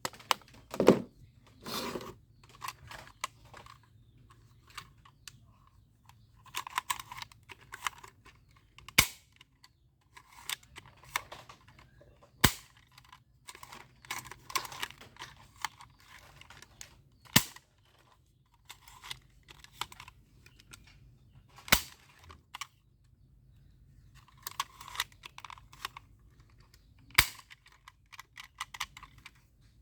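Plastic toy guns being handled, with runs of small clicks and rattles. A single sharp snap, typical of a toy gun's trigger or spring mechanism, comes every few seconds, about five times.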